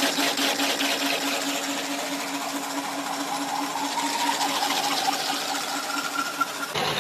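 Veneer peeling machine running, shaving a continuous sheet of wood veneer for matchsticks: a steady hum under a fast, even clatter.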